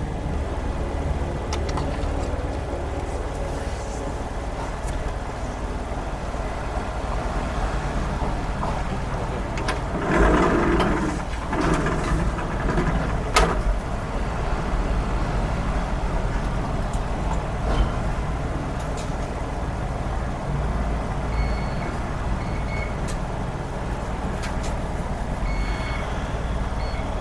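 Car engine idling steadily while stationary. About ten seconds in there is a brief louder rush of noise and then a sharp click. In the last several seconds there are short, high electronic beeps, repeated a few times.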